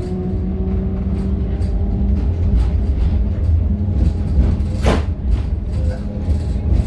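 Older GVB Amsterdam tram heard from inside the car while running: a low rumble with a steady motor hum that drifts slightly in pitch, light rattles and knocks from the wheels and body, and one sharp noise about five seconds in.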